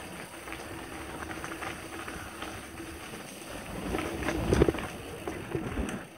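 Mountain bike rolling over a dirt trail: tyres crunching and the bike rattling. About four seconds in it gets louder, a run of bumps and knocks as the bike drops down a steep dirt slope.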